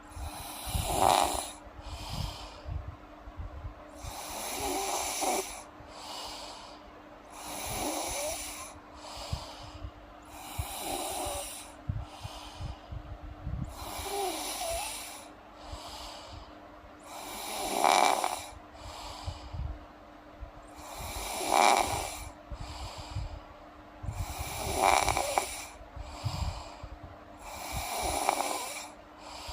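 A sleeping girl snoring: a snore about every three and a half seconds, each followed by a shorter, softer breath.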